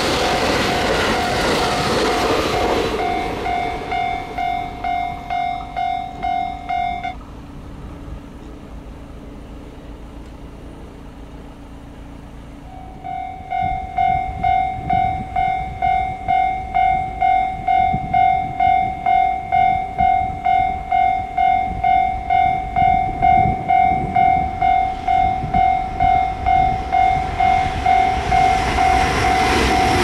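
Railway level-crossing warning bell ringing, a repeated electronic ding at a little under two a second. It falls silent about seven seconds in and starts ringing again about six seconds later. A limited express train's passing rumble fades out in the first few seconds, and another train's noise builds near the end.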